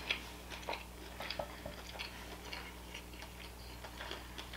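Closed-mouth chewing picked up close by the microphone: soft, irregular little mouth clicks and smacks.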